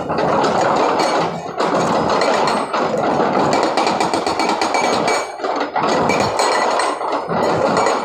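Hydraulic rock breaker on a Sany SY210 excavator hammering rock with a rapid, continuous rattle of blows, broken by a few short pauses.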